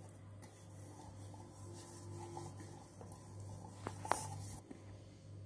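Fingers rubbing ghee around the inside of a stainless steel vessel, a faint scratchy rubbing, with two light clicks of the steel being handled about four seconds in.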